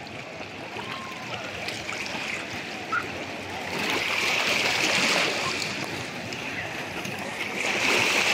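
Sea water sloshing and splashing at the surface, swelling louder about four seconds in and again near the end.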